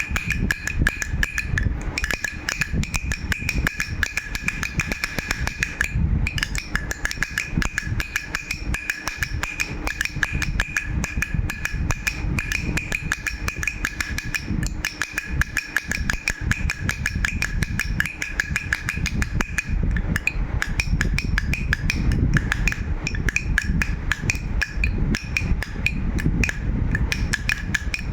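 Baby rattle shaken quickly and steadily, a dense run of rattling clicks, with a steady high ringing tone that fades out about two-thirds of the way through.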